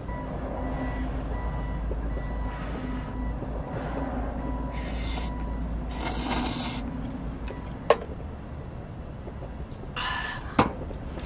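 Instant stir-fried noodles being slurped off chopsticks, four short slurps in about six seconds, followed by two sharp clicks.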